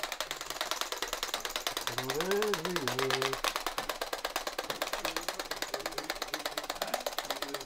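Hand-held electrostatic grass applicator (flocker) ticking rapidly and evenly as it is worked over a model railway baseboard, laying static grass fibres.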